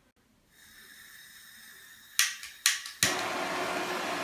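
Handheld gas blowtorch: a faint hiss of gas, then three sharp clicks about two seconds in as it is lit, after which it burns with a loud, steady rushing hiss.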